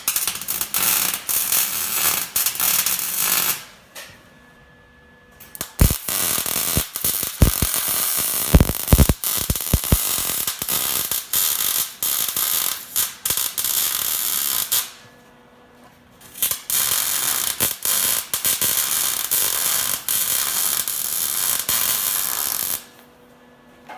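Electric arc welder crackling and sizzling as a weld bead is laid on a steel bumper, in three long runs with short pauses between. The arc stutters with sharp pops in the middle run, as in an amateur's uneven weld.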